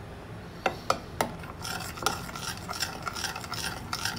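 Metal spoon stirring a thick gelatin, water and glucose syrup mixture in a ceramic bowl, clinking and scraping against the sides. There are a few sharp clinks in the first second or so, then steady scraping strokes at about three a second.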